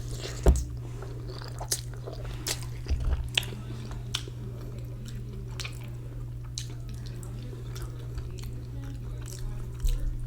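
A person chewing and biting ramen noodles close to the microphone, with sharp mouth smacks and clicks scattered through, the loudest about half a second in.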